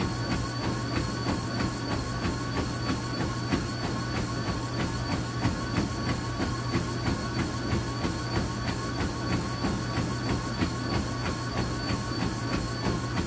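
A runner's footfalls landing on a treadmill belt at about three steps a second, running at roughly a 7-minute-mile pace, over the steady hum and whine of the treadmill's motor.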